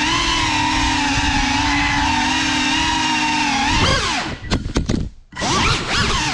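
FPV quadcopter's brushless motors and propellers whining at a steady pitch, picked up on the drone's own frame. About four seconds in the throttle drops sharply, the motors nearly cut out around five seconds, then spin back up with a quick rising whine.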